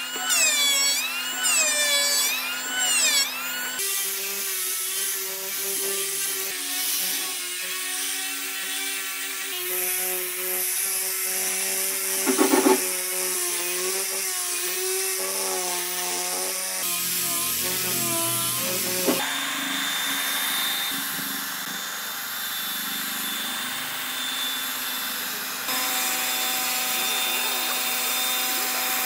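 Woodworking power tools running on wood, each with a steady motor whine. The sound changes abruptly every few seconds from one tool and cut to another, with a brief louder grinding burst about halfway through.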